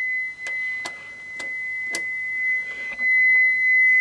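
A steady, high-pitched sine-wave test tone of about 2000 hertz from a function generator and amplifier test setup. Four sharp clicks come in the first two seconds as a control knob is turned.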